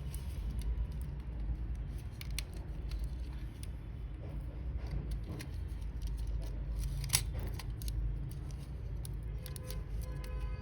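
Scattered small clicks and taps of hands handling the opened Logitech G903 mouse's plastic shell, parts and tools, with a sharper click about seven seconds in, over a steady low rumble. Faint music comes in near the end.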